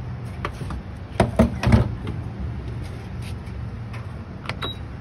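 Knocks and clatter of a gas pump being handled, over a steady low hum. A cluster of sharp knocks comes a little over a second in. Near the end there is a click and a short high beep as a fuel-grade button on the pump is pressed.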